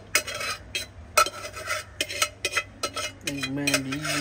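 Metal utensils clinking and scraping against dishes in quick, irregular strokes. A short held voice sounds near the end.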